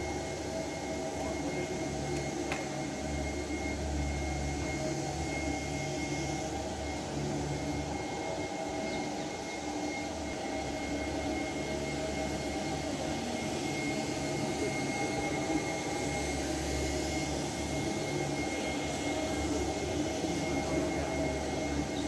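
Steady mechanical hum and hiss with a faint high whine, the room tone of a large hall, with the low part of the hum swelling and fading irregularly.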